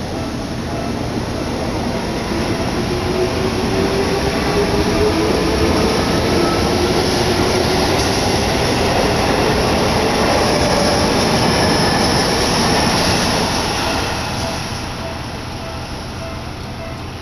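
Seibu 20000 series electric train running past a level crossing: rolling noise builds to its loudest in the middle and fades over the last few seconds, with a motor whine rising slowly in pitch. The crossing bell rings steadily throughout.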